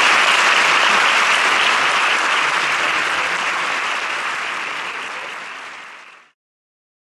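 Audience applauding at the close of a talk, loud at first and slowly fading, then cutting off suddenly about six seconds in.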